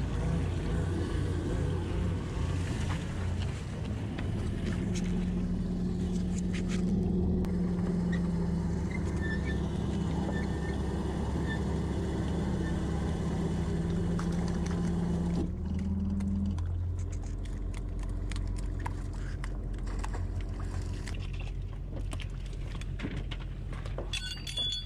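Fishing boat's engine-driven net winch running steadily as the net is hauled aboard, its pitch sagging a little under the load. About fifteen seconds in, the winch stops and the engine settles to a low idle, with scattered clicks and knocks from the net and catch being handled.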